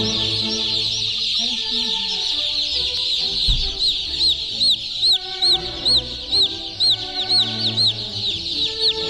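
Chickens peeping: a dense chorus of high calls that thins to separate, repeated peeps about two or three a second. A low thump about a third of the way through, with a low steady hum beneath.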